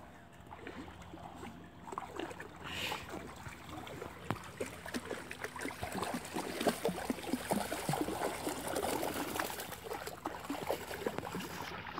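Beagles splashing and sloshing as they paddle and wade through shallow stream water. The splashing starts a couple of seconds in and grows louder and busier after about six seconds.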